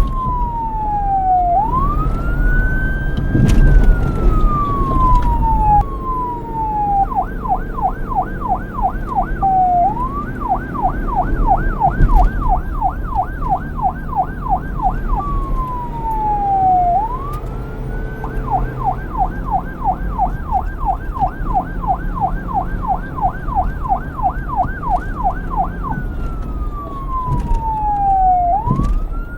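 Police car electronic siren sounding, switching between the slow rising-and-falling wail and the rapid yelp, about four sweeps a second, then back to the wail near the end. A low rumble runs underneath, with a loud thump about three and a half seconds in and another about twelve seconds in.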